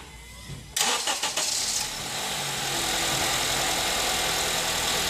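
Car engine started with the starter motor: it fires up about a second in and then settles into a steady idle.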